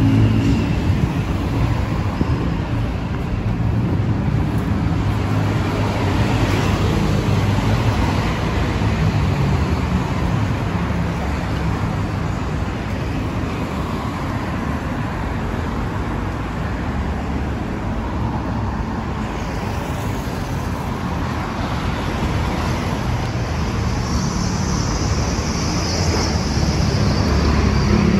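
Steady roar of busy city road traffic, cars and buses passing close by, with a high hiss rising over it near the end.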